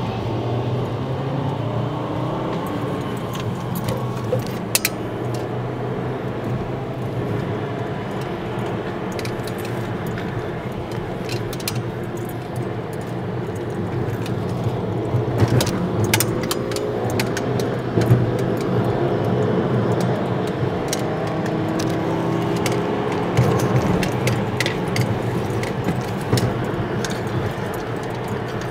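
Vehicle engine running on the move, its pitch rising and falling as it accelerates and shifts, with road noise and many light rattling clicks throughout.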